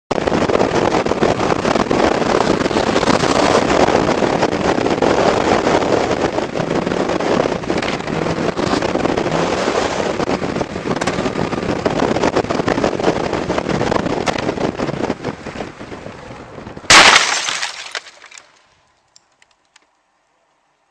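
Snowmobile running at speed, a steady loud rush of engine and wind, easing off slightly a few seconds before one sudden, very loud crash near the end. After the crash the sound dies away within a second or two to near silence.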